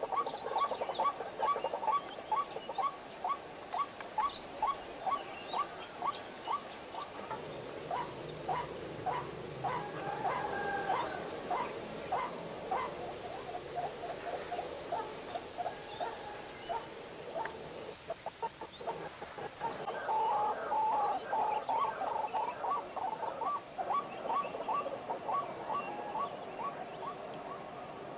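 White-breasted waterhen calling: a long series of short clucking notes repeated about two a second, growing denser and more jumbled about twenty seconds in.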